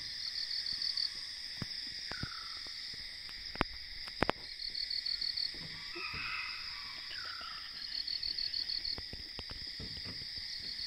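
A steady, high-pitched drone of insects in a monsoon forest. A short, rapid pulsing trill repeats about every three to four seconds, with a few softer calls in between. Two or three sharp clicks come about four seconds in.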